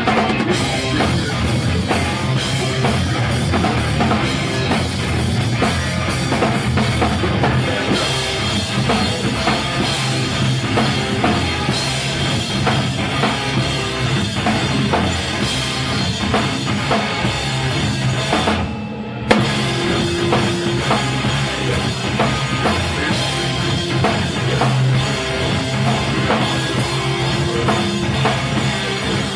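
Rock band playing live at full volume, drum kit pounding under loud guitars. About two-thirds of the way through the band stops for a split second, then comes back in on a sharp hit.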